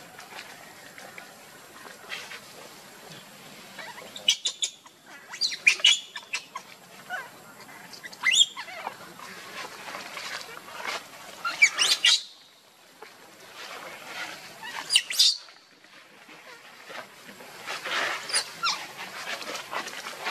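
Baby macaque screaming in distress: short bouts of high-pitched squeals that rise and fall in pitch, coming every few seconds, with quieter rustling of dry leaves between them.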